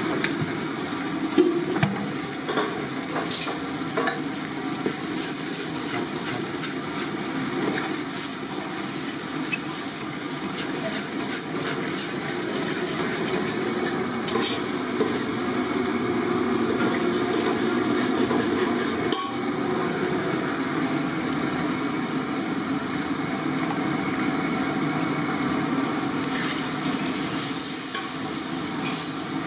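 Masala for a fish curry (chilli powder and onion paste in oil) frying and sizzling in a large aluminium pot, with a spoon stirring and now and then knocking against the pot's side.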